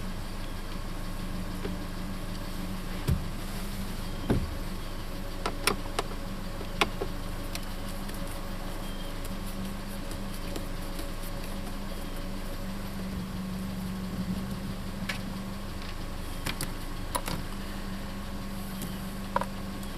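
2013 Hyundai Elantra GT engine idling steadily, with scattered sharp clicks and knocks from a screwdriver and the plastic steering column shroud as its screws are taken out.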